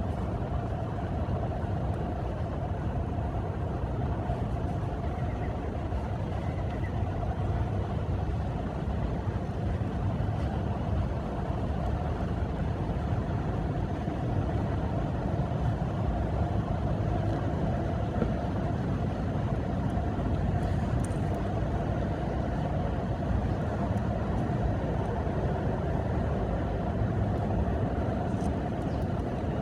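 Steady low rumble of background noise with a faint constant hum, unchanging throughout.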